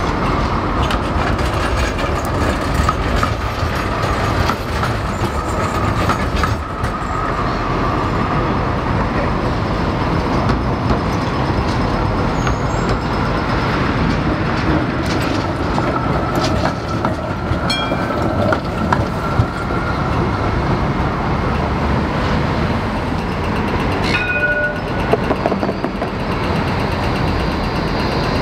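Melbourne trams running through a busy city intersection, steel wheels rolling over the street track, over a steady rush of city traffic.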